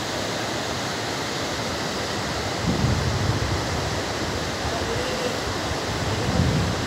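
Steady rushing hiss of a fast mountain river running over rocks in white-water rapids. From about two and a half seconds in, low irregular rumbles of wind buffet the microphone.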